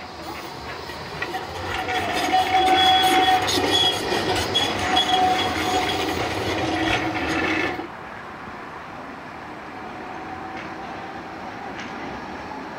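Flexity 2 tram running past close by on street track, with steady high-pitched tones over the rolling noise, loudest a few seconds in. The sound cuts off abruptly about 8 s in, leaving quieter street traffic.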